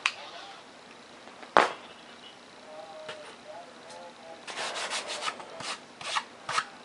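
Foam-board model being handled and rubbed: one sharp knock about a second and a half in, then a run of quick rubbing strokes, a few a second, from about halfway.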